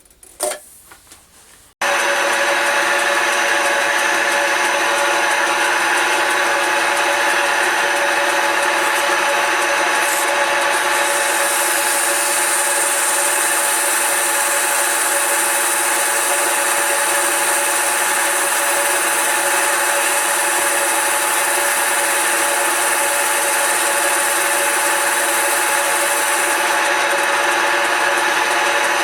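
Smart and Brown model L lathe starting suddenly about two seconds in and running steadily with a constant hum. Through the middle, sandpaper hisses against the spinning wooden file handle, giving it a smooth finish.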